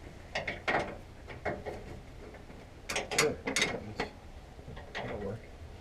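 Irregular metallic clicks, clanks and scrapes of hand tools and steel parts being worked on a Case IH 2388 combine's concave grate, in small clusters.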